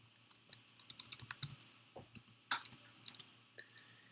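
Keystrokes on a computer keyboard: a quick run of key presses in the first second and a half, then a few scattered ones. This is a typo being corrected and a line of code being finished and entered.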